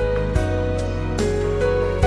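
Instrumental background music: held notes over a steady beat.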